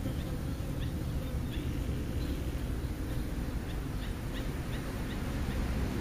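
Low rumble of wind on the microphone, with faint, quick high chirps of small birds in the background coming in short runs.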